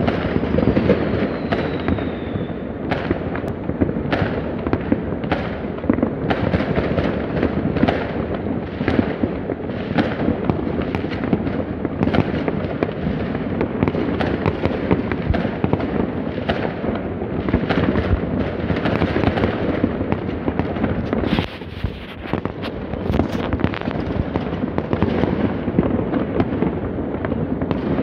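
New Year's Eve fireworks and firecrackers going off across a city: a dense, continuous barrage of overlapping bangs and crackle with a rumbling echo, and no gaps. A faint falling whistle runs through the first couple of seconds.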